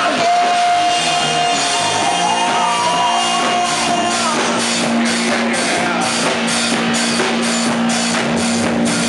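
Live Christian worship band playing a loud, upbeat rock song with drum kit. Gliding lead lines come in the first few seconds, then the drums settle into a steady beat of about two to three hits a second under a long held low note.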